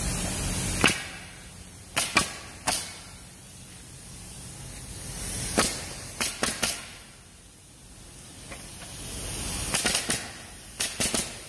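Pneumatic nail guns firing nails into wooden pallet boards: about a dozen sharp shots, singly and in quick runs of two or three, with a hiss that swells and fades between them.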